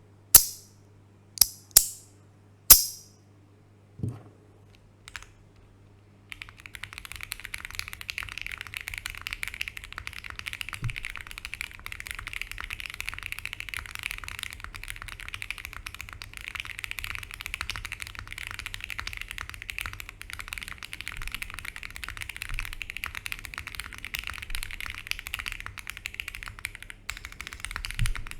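Foamless Sugar65 R2 mechanical keyboard with lubed Gateron CJ switches: a few separate loud, sharp clacks over the first five seconds, then fast continuous typing from about six seconds in, with a brief pause near the end. It has a full, poppy clack.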